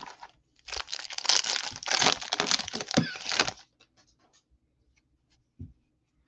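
A 2021 Bowman baseball card pack's wrapper being torn open and crinkled for about three seconds. Near the end there is a single short, soft knock.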